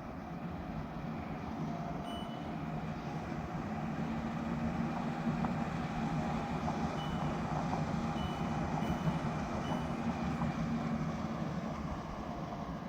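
Levoit LV-PUR131 air purifier fan running with a steady rushing hiss and low hum. Short high beeps from its control panel come a few times as the fan is switched between modes. The fan noise swells a little about four seconds in and drops back near the end.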